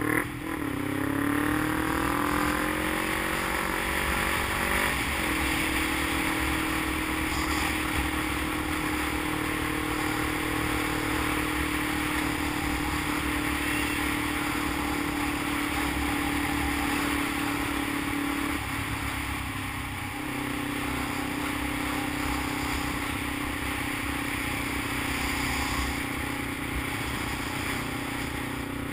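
Sport motorcycle engine under way: its note climbs, drops sharply and climbs again at the start and about five seconds in, as through gear changes, then holds a steady cruising pitch. It eases off briefly about two-thirds of the way through and settles again, with wind and road noise throughout.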